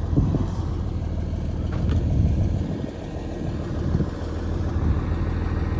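Engine of a large vehicle idling with a steady low hum, with irregular low rumbles over it.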